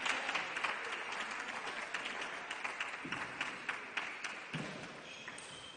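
Applause from spectators in the hall, many quick sharp claps, fading away gradually toward the end, after a point is won.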